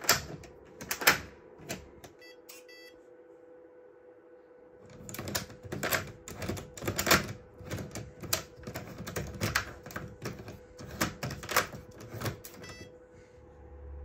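Sharp clicks and clacks of a WELOCK Touch fingerprint smart lock's knob being turned and handled on the door's lock cylinder. There are a few clicks at first, a short lull, then a dense run of clicking from about five to twelve seconds, over a faint steady hum.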